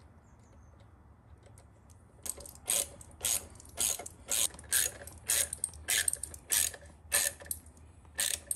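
Hand socket ratchet clicking in short back-and-forth strokes as a bolt is run in, starting about two seconds in and repeating about twice a second.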